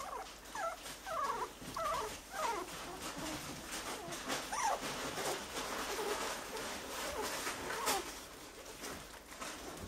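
Three-week-old miniature schnauzer puppies whimpering, with a run of short high squeaky calls in the first half and fewer later, over a steady crackle of small clicks and rustling and one sharp click near the end.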